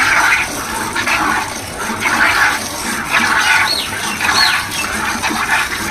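Hand milking a cow: streams of milk squirting from the teats into a plastic bucket in a steady rhythm, about one squirt a second.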